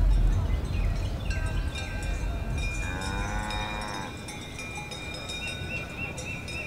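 A cow lows once, about three seconds in, a single call of about a second that rises and falls, over steady high ringing tones.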